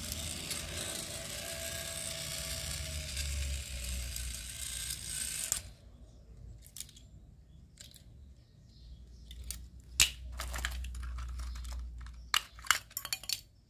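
Plastic motor-and-gear unit of a battery-powered walking toy horse being handled and fitted into its shell: scattered clicks and taps, more of them near the end. Before them a steady hiss cuts off suddenly about five and a half seconds in.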